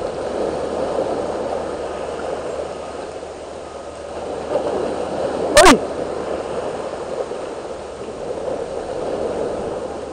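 Small waves washing and splashing against the boulders of a rock breakwater, a steady rushing wash. A single sharp knock a little past halfway through is the loudest moment.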